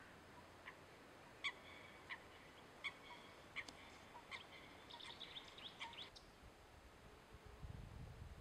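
Little grebe calling: short, sharp, high notes a little under a second apart, quickening into a fast run about five seconds in. A low rumble comes in near the end.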